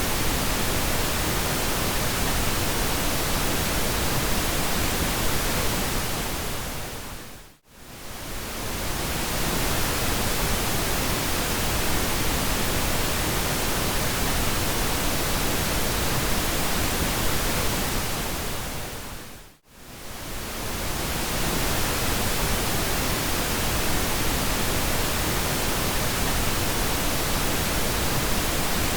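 Steady pink noise, an even hiss spread across all pitches. It fades down to near silence and back up twice, about 8 and 20 seconds in.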